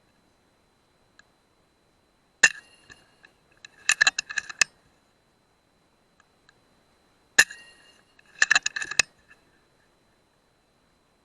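Two shots from an FX Dreamline .177 PCP air rifle, about five seconds apart, each a sharp crack with a short metallic ring, followed about a second later by a quick run of clicks as the action is cycled to load the next pellet. A faint steady high whine sits underneath.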